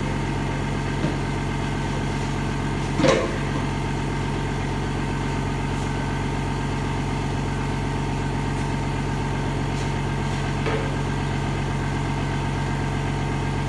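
Steady hum of a running motor or engine, with one sharp metallic knock about three seconds in and a lighter one near the end.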